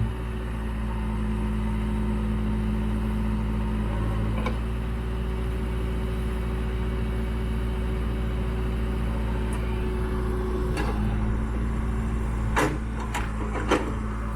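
Case 580N backhoe's diesel engine running at a steady idle, with a few sharp knocks in the last few seconds.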